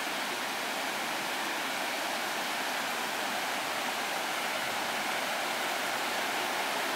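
Shallow rocky stream rushing and splashing over boulders, a steady even rush of water.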